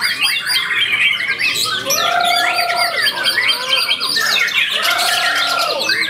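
White-rumped shama (murai batu) singing, a dense run of quick varied chirps and trills, with two long, low, held whistled notes about two and five seconds in.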